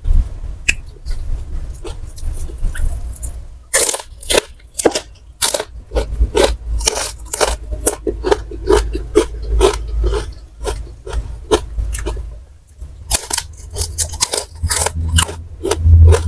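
Close-up crunching and chewing of crisp fried snacks such as fried tempe and crackers, mouth noises close to the microphone. The crunches come thick and fast, with a short pause about three quarters of the way through.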